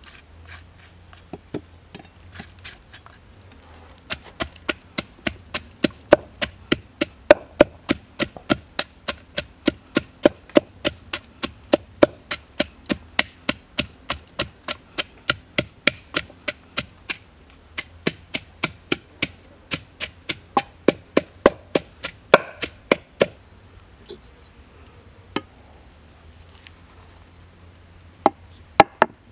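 Wooden pestle pounding fresh chilies and garlic into a paste in a wooden mortar: steady knocks about three a second that stop after about twenty seconds, with a couple more knocks near the end.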